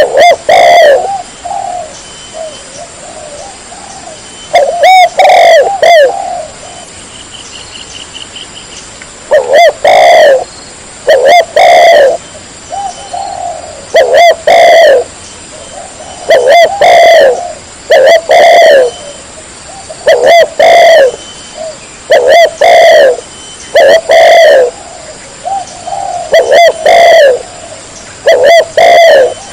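Spotted dove cooing: a short phrase of a few low coos, repeated every one to three seconds. The recording is very loud and flattens out on each phrase.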